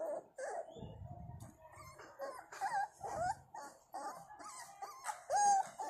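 Pakistani bully puppies whimpering, short high whines again and again, with a rustle of handling about a second in.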